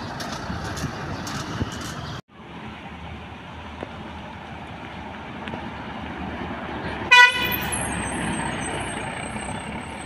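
Tour buses' engines running as they pull past. About seven seconds in comes one short, loud toot of a bus horn.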